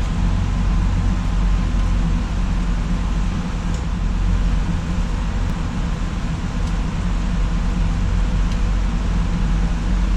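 Steady whir and hum of a crypto-mining rig's many graphics-card fans running, with a few faint ticks.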